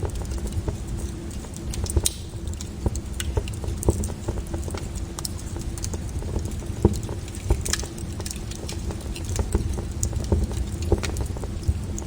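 Wood bonfire crackling: irregular sharp pops and snaps, several a second, over a steady low rumble of the flames.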